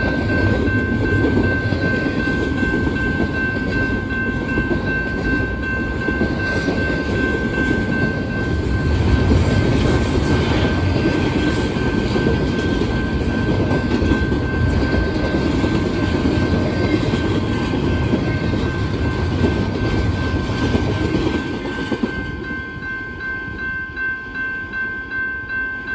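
Freight train rolling past: a dense rumble of wheels on rail with a steady high ringing tone over it. Near the end the rumble fades, leaving a regular pulsing ring about once every 0.7 seconds.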